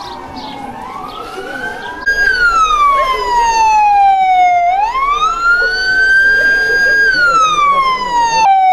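Police-style siren of a gendarmerie patrol car, sounding a slow wail that rises and falls. It is faint for the first couple of seconds, then loud from about two seconds in, and cuts off briefly and restarts near the end.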